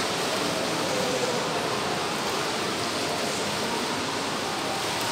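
Steady, even rushing background noise of a large indoor shopping mall hall, with no distinct events.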